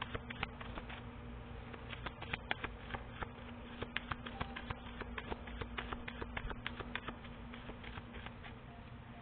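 Tarot cards being handled, with many quick irregular light clicks and taps over a steady low hum.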